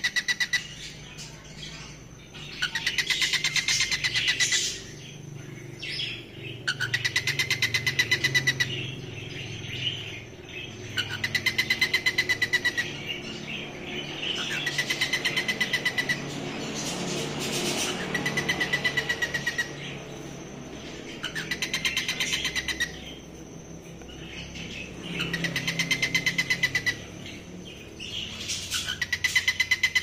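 Male cockatiel singing its courtship song: the same buzzy, rapidly pulsed whistled phrase, about two seconds long, repeated every three to four seconds, a sign the bird is ready to mate.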